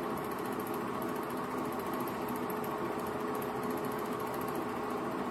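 8mm film projector running steadily, its motor and film transport making an even mechanical whir and clatter.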